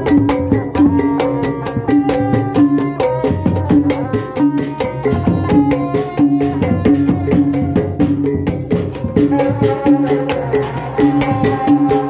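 Sundanese street percussion ensemble playing tuned kettle gongs and a large frame drum struck with padded mallets, in a fast steady beat with a gong melody over it.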